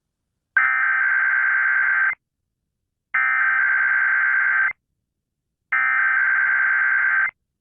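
Emergency Alert System SAME header: three identical bursts of digital data tones, each about a second and a half long, with about a second of silence between them. The header opens a Required Weekly Test.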